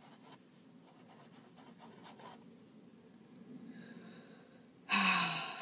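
Steel extra-fine nib of a Lamy fountain pen scratching over paper in quick scribbling strokes, worked to get a slow-starting pen to bring its ink through; the scratching stops after about two seconds. Near the end, a short loud sound of the voice, falling in pitch.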